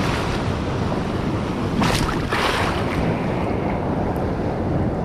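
Ocean surf washing and breaking around someone wading in it, with wind buffeting the microphone; two louder splashes about two seconds in.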